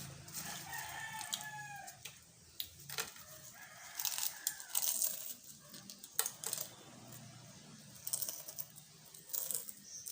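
Potato chips being bitten and chewed close to the microphone: sharp, irregular crunches. About half a second in, a separate drawn-out pitched call sounds for about a second and a half.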